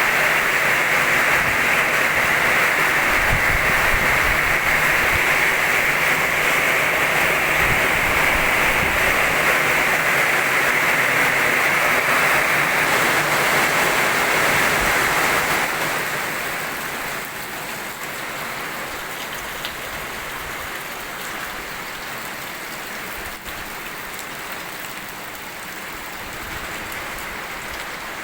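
Heavy rain in a windstorm: a steady hiss of downpour that drops noticeably quieter about sixteen seconds in.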